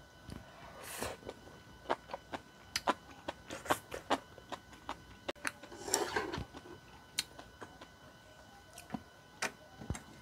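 Chewing and wet mouth clicks from eating tteokbokki noodles, picked up by a lapel mic, with sharp irregular clicks of chopsticks and food. There are two longer, noisier stretches, about a second in and about six seconds in.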